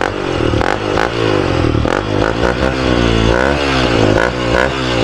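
Honda CRF150's single-cylinder four-stroke engine breathing through an aftermarket Exos X-6 slip-on silencer, revved up and down with several throttle blips over idle.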